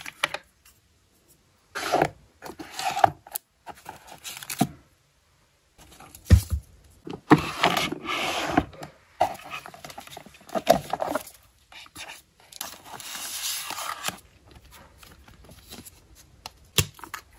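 ASMR stationery handling: plastic tape dispensers and tubes clicking and clattering in a clear plastic storage drawer, the drawer scraping as it slides, and paper sticker books rustling. The sounds come in short, irregular bursts with pauses between them.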